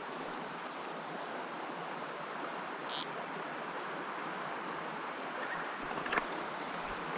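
Steady rush of a mountain stream's flowing water, with a brief high click about three seconds in and a couple of faint ticks near the end.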